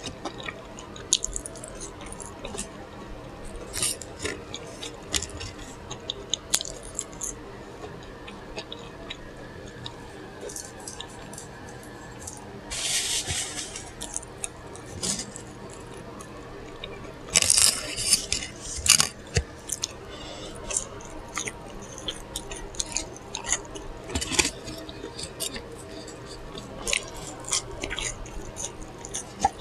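Close-miked chewing and lip-smacking while eating a burger: wet mouth sounds and many small clicks throughout. Two brief, louder bursts about 13 and 18 seconds in.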